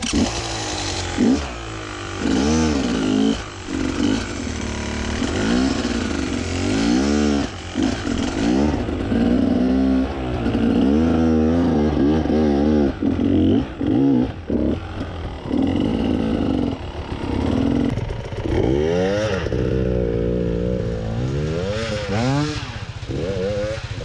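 Enduro dirt bike engine revving hard in repeated bursts, the pitch rising and falling every second or two as the throttle is worked under load on a steep, loose climb.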